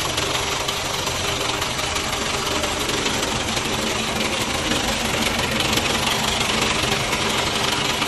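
A vacuum machine running on a test run: a steady, even mechanical noise from its pumps, with no breaks or changes.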